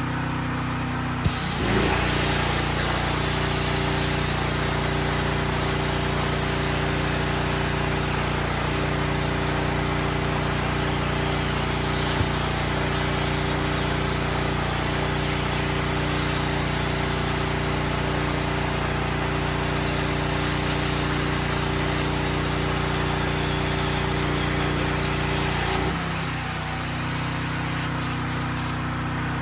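CNC plasma cutter cutting: a sharp pop about a second in as the arc strikes, then a steady loud hiss of the plasma arc and air for over twenty seconds, cutting off suddenly near the end. A constant machine hum runs underneath.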